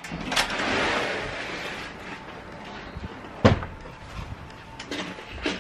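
Rustling for about a second, then a single heavy thump about three and a half seconds in, with a sharp click near the end.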